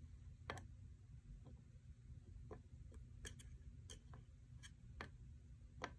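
Near silence over a low steady hum, broken by about ten faint, irregularly spaced clicks and ticks.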